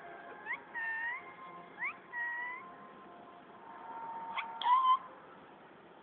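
Pet green parrot calling: several short pitched calls that swoop up and bend down in pitch, the loudest near the end.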